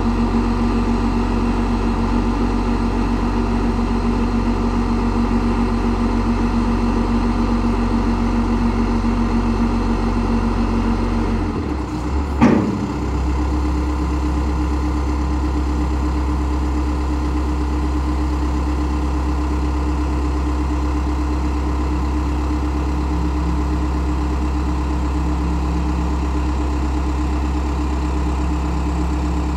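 Lull 944E-42 telehandler's diesel engine running steadily. About twelve seconds in there is a brief clunk, and the engine note settles onto a slightly different steady pitch.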